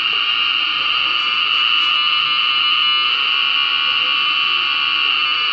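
Lightning detector's alarm buzzer sounding continuously: a loud, steady high buzz with a fast flutter in it. It is triggering on its own with nothing touched, not from a bad connection, and sounds as if it were getting a very fast control pulse.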